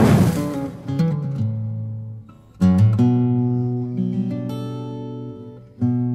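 Acoustic guitar music: strummed chords that ring and fade, with fresh chords struck about a second in, midway and near the end. A rush of noise dies away in the first second.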